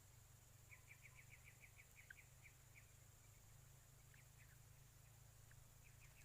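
Faint bird chirping: a quick run of about ten short chirps about a second in, then a few scattered single chirps.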